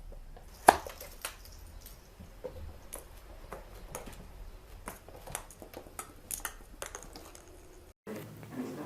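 Irregular light clicks and knocks, with one sharp, much louder knock a little under a second in; the sound cuts off suddenly near the end.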